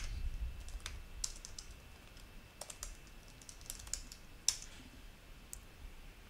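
Computer keyboard typing a short terminal command: sparse, faint key clicks, with one harder keystroke about four and a half seconds in as the command is entered.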